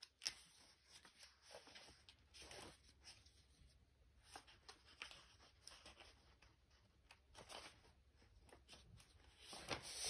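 Faint, scattered rustling and light clicks of sheets of patterned craft paper being shuffled through by hand, with one sharper tap just after the start and a louder rustle near the end as a sheet is pulled out.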